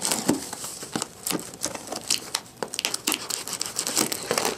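A box cutter slicing through packing tape on a cardboard shipping box, with the tape and flaps being pulled apart by hand: an irregular run of scratchy crackles and sharp clicks.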